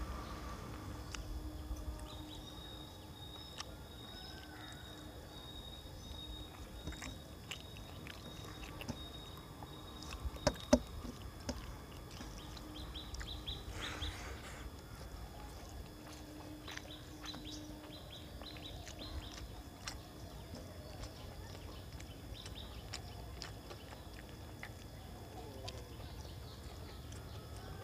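Eating by hand: chewing and fingers working rice on a steel plate, heard as scattered small clicks with a sharper click about ten and a half seconds in, over a steady outdoor background with faint birds.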